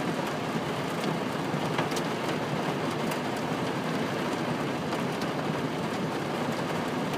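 Heavy rain pouring down on a car, heard from inside the cabin: a steady dense hiss with scattered sharper drop hits.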